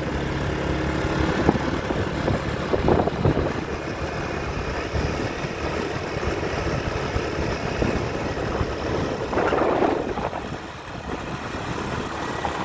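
A motor vehicle's engine running steadily under a rushing noise, with brief louder swells about three seconds and ten seconds in.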